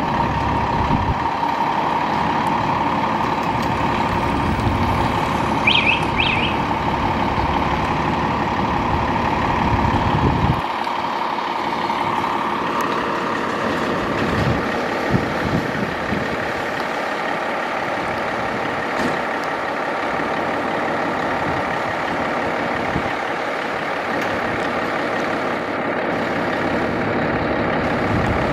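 Seagrave fire engine's diesel idling in the open firehouse bay, the low rumble heavy for the first ten seconds and lighter after. A steady high warning tone sounds over it, strongest for the first twelve seconds.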